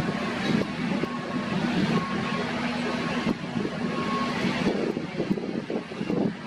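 Wind buffeting the microphone over the steady hum of a running heavy-machinery engine, with a faint beep about once a second.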